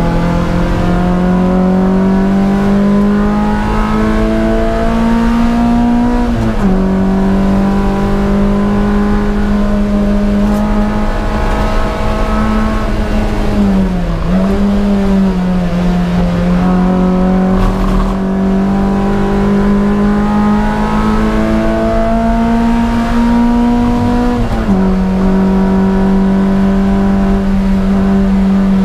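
Toyota MR2 race car's mid-mounted four-cylinder engine, heard from inside the cockpit, pulling at high revs with its note climbing slowly. The note drops sharply at a quick upshift about six seconds in and again near the end. About halfway it dips briefly and picks back up as the driver lifts off and gets back on the throttle.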